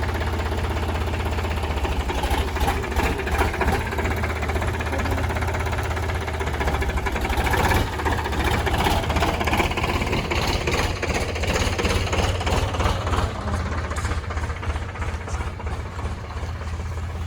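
Heavy diesel vehicle engine running close by: a steady low rumble with a fast, even clatter.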